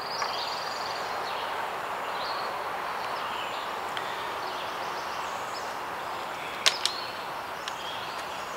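Steady background noise with faint, scattered bird chirps, and two sharp clicks close together about seven seconds in.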